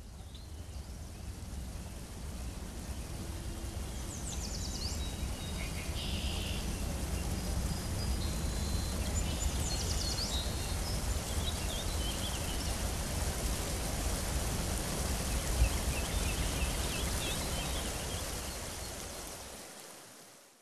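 Stream water rushing out of a culvert in a steady rush, fading in over the first few seconds and fading out near the end, with birds chirping now and then.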